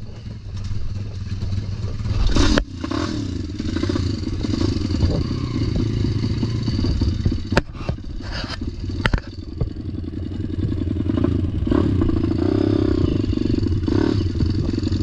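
Pit bike's single-cylinder four-stroke engine running at low revs as the bike moves off slowly, with a short louder burst about two and a half seconds in and a few sharp clicks midway.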